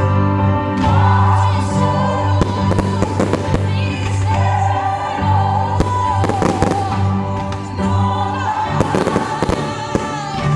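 Fireworks bursting and crackling in several clusters over a music soundtrack with a sung melody and a low sustained drone.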